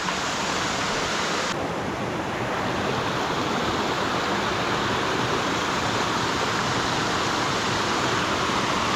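Steady rush of water from a stream and waterfall, running high after heavy rain.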